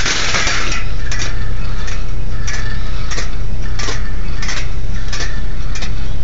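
Steel balls clicking and clinking along the stainless steel wire tracks of a rolling ball sculpture, in irregular knocks, with a denser rattle near the start. A steady low hum runs underneath.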